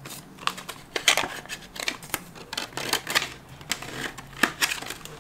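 Paper banknotes crackling and rustling in the hands as a folded $20 bill is slipped into a paper cash envelope, with irregular sharp crinkles and taps several times a second.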